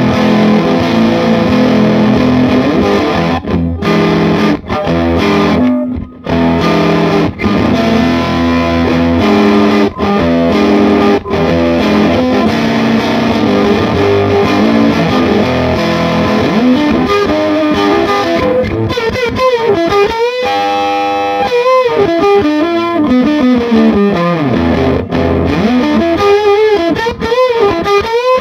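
Telecaster electric guitar played through a single-EL84 Epiphone Valve Junior tube amp and Celestion Alnico Blue speaker, turned up into tube overdrive. It plays distorted chords, then from about two-thirds of the way in single notes with string bends. The player hears the tone as muddy, without an edge.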